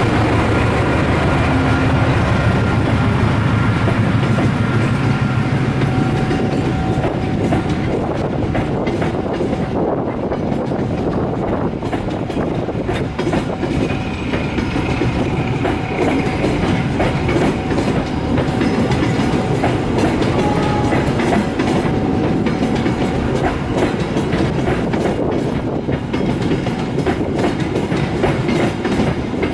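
Passenger coaches of a long train rolling past close by, the wheels clattering steadily over the rail joints. The low running note of the diesel locomotive hauling them fades out over the first few seconds.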